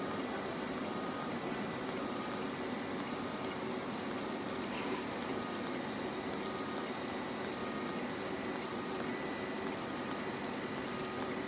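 Robotic welding arc burning along a stainless-steel tube-to-tube T-joint: a steady, even hiss over a low hum, with a brief louder hiss about five seconds in.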